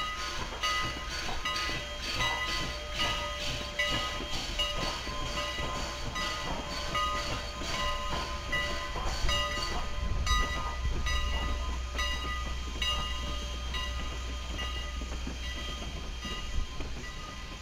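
Steam locomotive No. 89 of the Strasburg Rail Road moving slowly with its bell ringing steadily, about three strikes every two seconds, over a low rumble from the train.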